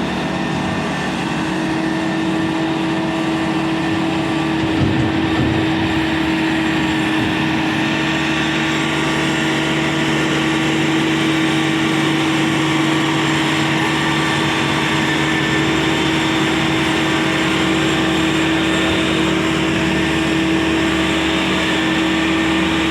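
Heavy diesel engine of farm machinery running steadily at a constant speed, with a steady hum; a brief knock about five seconds in.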